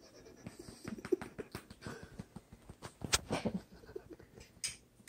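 A woman making a string of short clicking and smacking mouth noises to coax a baby to burp. The loudest comes about three seconds in.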